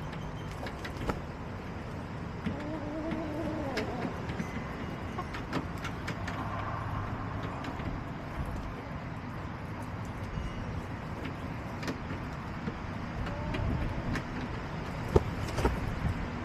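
Backyard hens giving a few soft, drawn-out calls and scattered light clicks over a steady low rumble of distant traffic.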